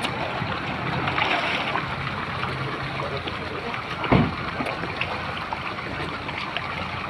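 Steady trickling, running water at a koi pond, with one short louder thump about four seconds in.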